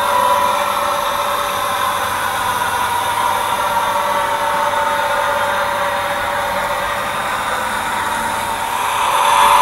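Engine sound played by the soundcard in a 1/12 scale model railcar as the train runs, a steady, slightly wavering hum that grows louder near the end.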